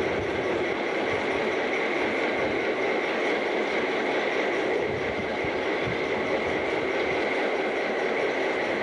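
Denver & Rio Grande Western ski train rolling past, its EMD F-unit diesel locomotives and then passenger coaches: a steady rush of wheels on rail with a constant high-pitched ring running through it.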